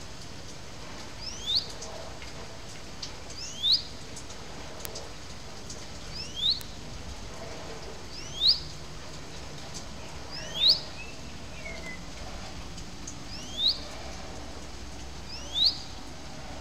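A bird calling: one short, sharp note repeated seven times, roughly every two seconds, over a steady background hiss.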